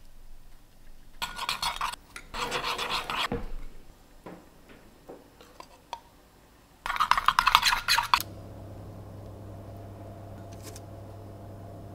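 Metal spoon scraping against a ceramic bowl while stirring melted chocolate, in three bursts of quick strokes with a few light clicks between them. A steady low hum follows near the end.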